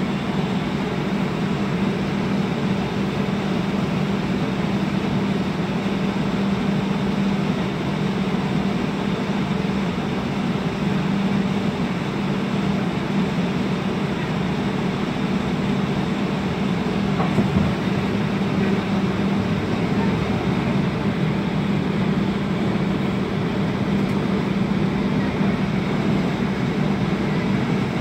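Inside a Toronto streetcar under way: a steady rumble with a low hum from the car running on its rails. There is a brief knock a little past the middle.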